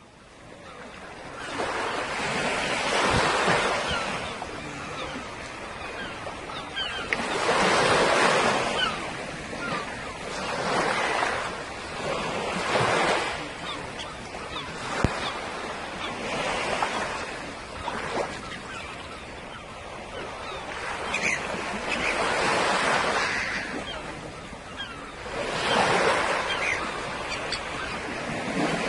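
Sea waves breaking and washing up a beach, the surf swelling and falling away every few seconds. The sound fades in over the first two seconds.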